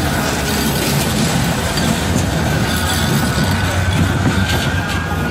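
Manchester Metrolink tram (Bombardier M5000) passing close on street track: a steady rumble of wheels and running gear, with a thin high whine and a few light clicks.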